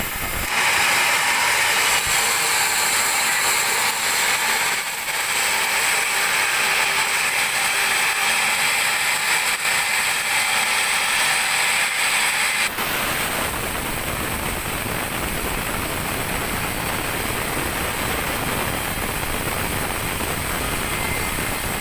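Sawmill band saw cutting a teak log: a loud, high-pitched sawing hiss that stops abruptly about 13 seconds in, leaving a steadier running machine noise.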